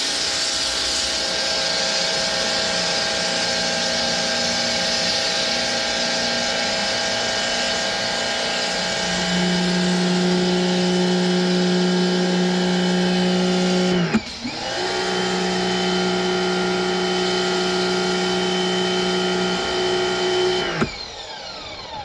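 Pressure washer running while spraying: a steady motor-and-pump whine over the hiss of the spray. It cuts out for a moment about two-thirds of the way through, starts again, then stops near the end with its whine falling away.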